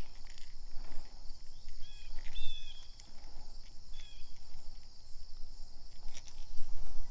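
Steady high-pitched insect chorus, with a few short chirping calls about two and four seconds in, over a low rumble.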